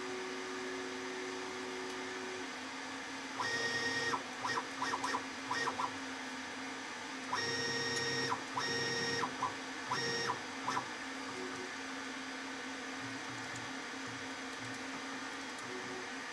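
Stepper motors of a CNC-converted HBM DM45A milling machine making short moves, with a whine that switches on and off abruptly: one longer move about three and a half seconds in, then a string of brief stop-start bursts. Under it runs a steady electrical hum.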